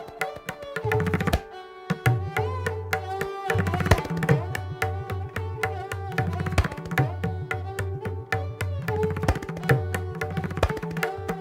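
Indian classical tabla solo: rapid, crisp strokes on the right-hand drum with deep bayan bass strokes that bend in pitch, over a steady repeating melodic accompaniment.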